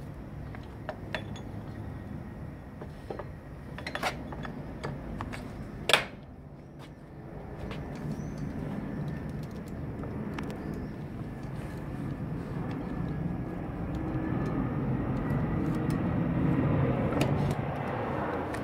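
A few sharp metallic clicks while the front-wheel axle is handled, the loudest about six seconds in. Then a low rumble of a road vehicle swells from about eight seconds in and is loudest near the end.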